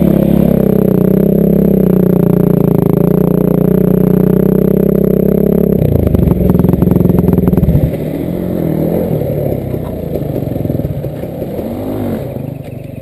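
Yamaha WR450F dirt bike's four-stroke single-cylinder engine heard close up from the rider's helmet, running at a steady pace on a trail. About six seconds in the note breaks up and drops as the rider backs off the throttle, and it runs lower and quieter as the bike slows near the end.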